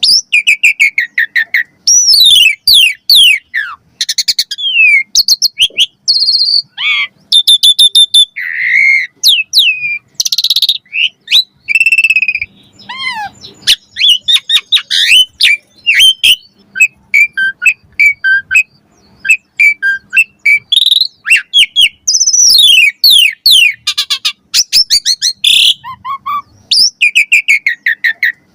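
Asian pied starling (jalak suren) singing a loud, varied song: a fast run of swooping whistles, falling glides and rapid rattling chatter, with hardly a pause.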